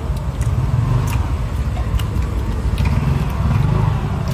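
A steady low rumble, with scattered short clicks and smacks of someone chewing meat off the bone close to the microphone.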